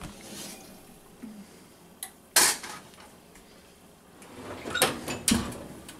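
A covered stainless steel pot being taken out of an oven and handled on the stovetop: a loud sharp knock about two and a half seconds in, then a cluster of metal clanks near the end.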